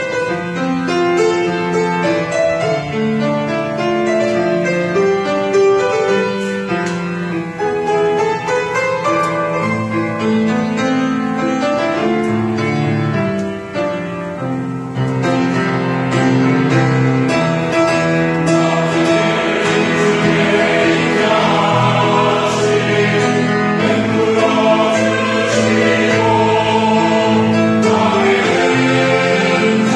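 Church choir anthem with piano accompaniment. The first half is mostly the piano, and the choir comes in singing about halfway through.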